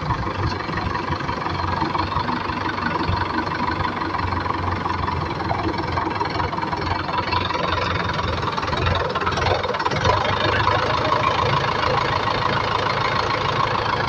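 Mahindra 575 tractor's four-cylinder diesel engine running at low revs while slowly reversing a loaded trolley, getting a little louder toward the end.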